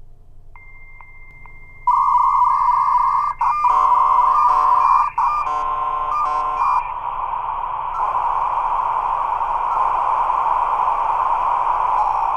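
Dial-up modem handshake: a thin high whistle, then a loud steady tone about two seconds in, then warbling stacked tones that switch on and off until about seven seconds in, settling into a steady hiss of static.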